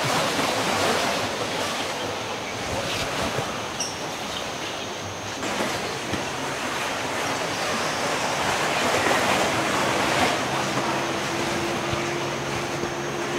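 Rushing whoosh of huge flocks of swifts, the cave's 'swallows', dive-bombing into the cave shaft. It swells and eases like surf.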